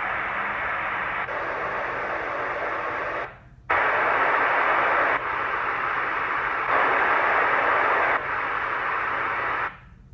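Hiss-like test noise from an audio test track played through a speaker, in blocks that step up and down in loudness every second or so. It drops out briefly about three seconds in and cuts off near the end.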